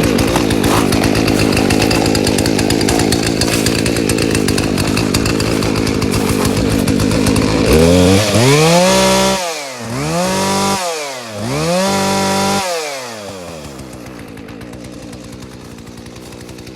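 Husqvarna 240 two-stroke chainsaw engine running, its carburettor freshly cleaned and choke knob repaired. It idles steadily, then is revved three times, each rev rising and falling, about eight seconds in, before it settles back and fades lower near the end.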